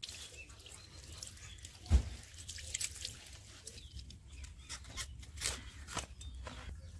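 Broccoli being cut on a boti, a curved iron floor blade: a dull thump about two seconds in, then a string of crisp snaps and rustles as stalks and leaves are sliced off the head.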